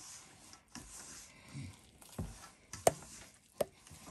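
Hands kneading stiff maida (plain flour) samosa dough in a stainless-steel bowl: soft rustling and squishing as the dough is pressed and folded, with three sharp knocks against the bowl in the second half.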